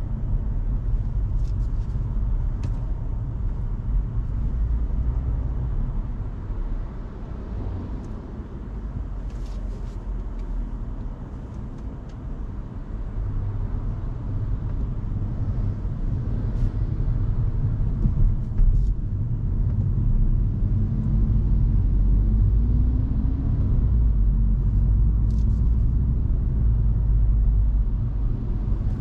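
Hyundai Kona Hybrid driving on city roads, heard as a steady low rumble of road and tyre noise, quieter for a while and then louder in the second half.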